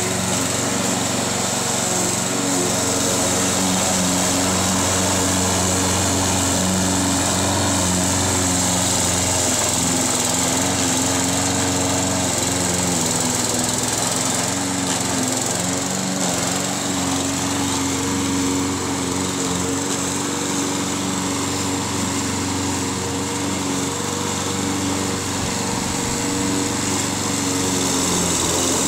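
Craftsman walk-behind gas lawn mower running steadily as it is pushed through long grass, about 10 inches tall in places, cutting without clogging.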